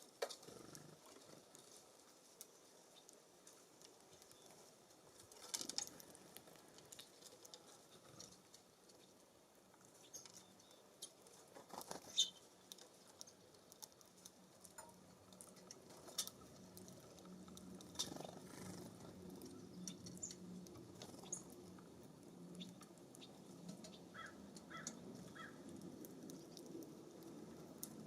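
Quiet outdoor ambience at a bird feeder: scattered light taps and clicks, with a few short, high bird notes near the end. A low, steady hum comes in and grows in the second half.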